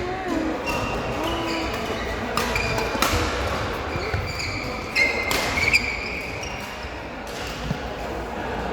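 A ball bouncing on a hard floor now and then, with several sharp irregular knocks, loudest about three seconds in and again around five to six seconds in.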